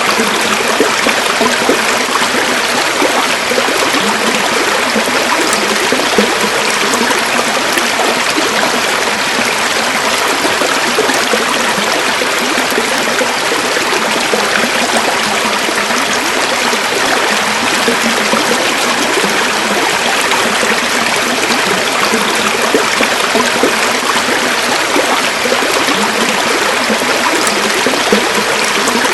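River water flowing and babbling over stones, a steady rush with fine trickling detail.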